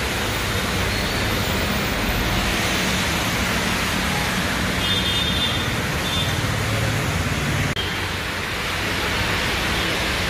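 Steady hiss of heavy rain mixed with road traffic: engines running and tyres swishing on the wet road.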